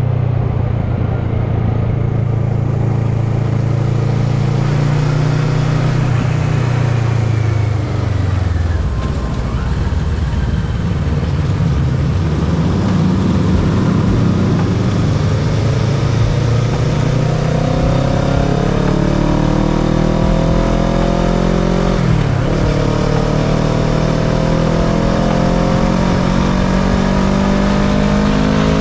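Kawasaki ER-6n's parallel-twin engine under way with wind rushing past: the revs hold steady, fall away about a quarter of the way in as the bike slows, then climb again in the last third, with a short dip as it shifts up before pulling on.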